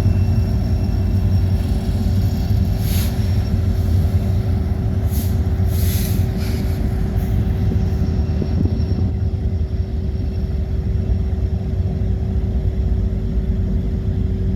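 Freight train rolling past: a steady, loud rumble of the cars with a constant whine, and a few short hisses a few seconds in.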